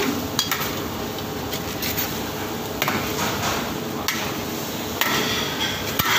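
Metal spatula and ladle clanking and scraping against a wok while stir-frying noodles, in irregular knocks over a steady frying hiss.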